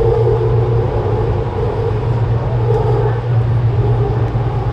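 Sydney Metro Alstom Metropolis train running through a tunnel, heard from inside the leading car: a steady low rumble of wheels on rails, with a fainter mid-pitched tone that swells and fades a few times.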